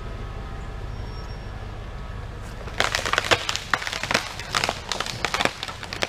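Dead tree trunk cracking and splintering as it is dragged by a recovery strap, a rapid run of sharp snaps starting about halfway through, over the steady low hum of an engine.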